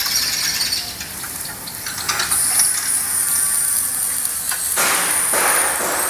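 Steel fabrication shop work: clinks and knocks of steel parts, with a steady high-pitched whine that starts about two seconds in.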